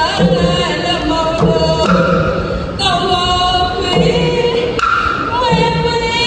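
A woman singing solo through a PA system, holding long notes that slide between pitches, over a musical accompaniment.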